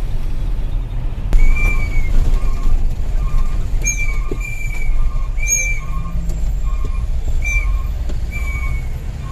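Truck engine running with a steady low drone. From about a second in, a short electronic beep repeats evenly about one and a half times a second, with higher chirps mixed in now and then.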